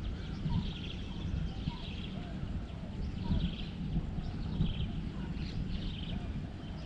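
Short high chirping animal calls, repeating in clusters about once a second, over a steady low rumble.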